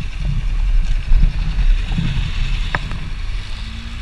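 Motorcycle engine running at low speed, with wind buffeting the helmet-mounted microphone and a single sharp click near the end.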